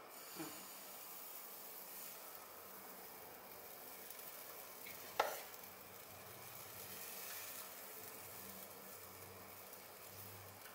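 Faint sizzle of pancake batter cooking in a nonstick frying pan, with one sharp knock about five seconds in.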